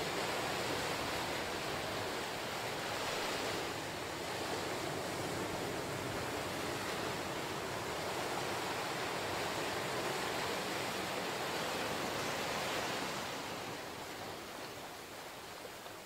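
Ocean waves breaking against lava rocks and washing up a sandy beach: a steady, noisy rush of surf that eases off near the end.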